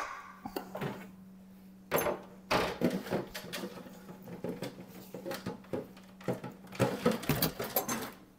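Kitchen handling noise: irregular clacks and knocks of dehydrator trays and utensils being moved and set down, busiest about two seconds in and again near the end, over a steady low hum.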